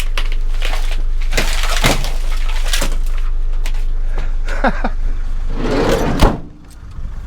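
Knocks and clatter of scrap electronics being handled, with a sharp bang about six seconds in, over the steady low rumble of a car idling.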